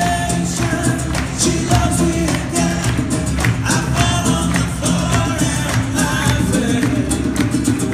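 Live acoustic band music: group singing over strummed nylon-string guitars, accordion and a regular drum beat.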